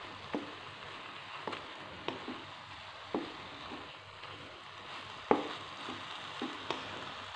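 Wooden spatula stirring grated coconut and palm-sugar syrup in a wok, with a steady sizzle as the mixture cooks down until dry. Irregular sharp knocks and scrapes of the spatula against the pan, the loudest about five seconds in.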